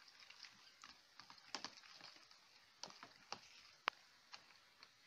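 Metal fork stirring thick pancake batter in a plastic container: faint, irregular clicks and scrapes as the fork knocks the tub, with one sharper click a little before the end.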